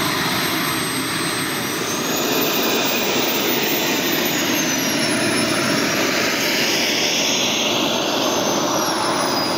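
Model jet turbine, a single B300F in a 1/5-scale RC English Electric Lightning, running on the ground as the model taxis. A steady rushing jet noise carries a high turbine whine that slowly rises and falls in pitch with the throttle.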